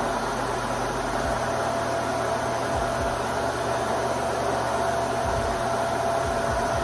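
Dyson Ball Multifloor 2 upright vacuum cleaner running steadily, a constant whine over a rushing air noise, with a few dull low bumps.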